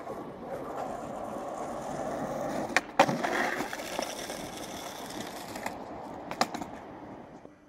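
Skateboard wheels rolling on asphalt, with two sharp clacks about three seconds in, the loudest moment. The rolling goes on more faintly, a few more clacks come past the middle, and the rolling dies away near the end.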